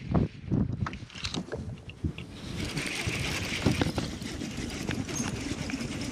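Rustling and knocks of a quilted jacket rubbing against the camera. About two and a half seconds in, a baitcasting reel begins a steady whirr, over wind and water noise.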